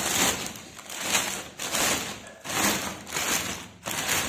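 Thin plastic liner of a large bag of dry cat food crinkling and rustling as hands pull it open, in repeated surges under a second apart.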